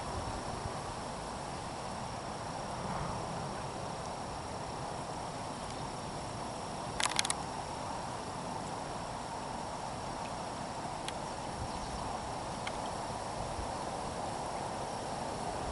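Steady chirring of insects over an outdoor noise bed, with a short cluster of sharp clicks about seven seconds in and a few faint single clicks later.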